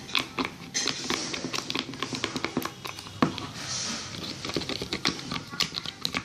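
Spoon clicking and scraping in a container while slime is stirred: a quick, irregular run of clicks with one sharper knock about three seconds in.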